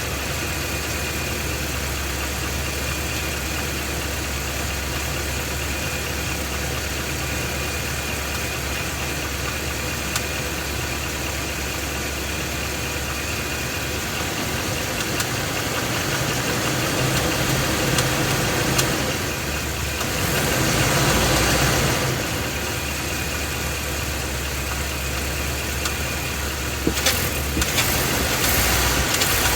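Ford 7.3-litre "Godzilla" gasoline V8 running, with a knocking noise from inside the engine. It is a bad internal noise that the dealer failed to fix, and the engine is being replaced. The engine grows briefly louder twice past the middle, and a few sharp clicks come near the end.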